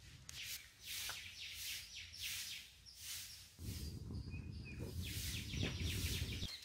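Small birds chirping in quick repeated high notes. About three and a half seconds in, a low steady noise from coconut husks and shells burning in a brick fire pit comes in under them.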